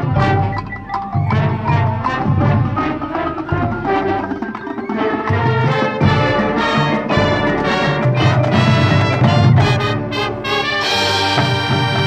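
Marching band playing live: brass over front-ensemble mallet percussion and drums, with a regular percussive pulse. Near the end the band moves into fuller, held notes.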